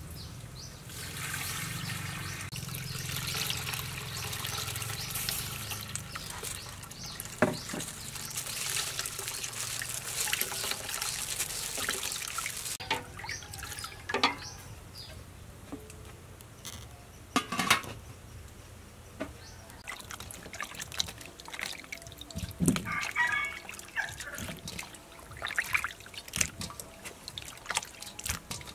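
Liquid poured from a plastic bowl into a steel cooking pot, a steady splashing pour for about the first twelve seconds. After that, quieter sloshing as a metal ladle stirs the liquid in the pot, with a few sharp knocks.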